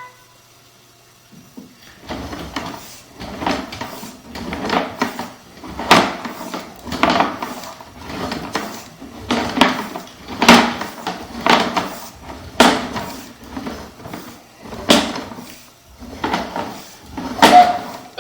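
Sewer inspection camera's push cable being fed hand over hand into the drain line, its reel and rod knocking and clattering in irregular strokes about once a second, starting about two seconds in.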